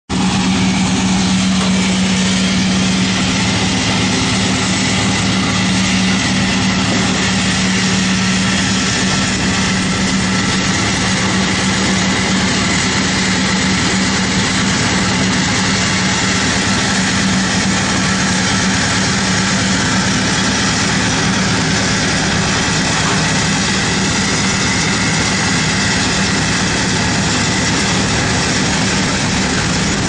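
Drum wood chipper running steadily with no wood being fed, a loud even hum with a strong low tone and no chipping impacts.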